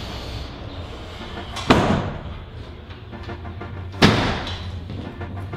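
Two knocks about two seconds apart as the two wooden leaves of a casement window are pushed shut, over a steady low rumble.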